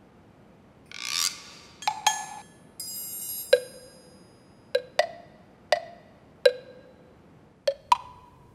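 A sparse percussion sound-effect cue. There is a short swish and a high, glassy shimmer of chimes early on, then about seven hollow, wood-block-like knocks at uneven intervals.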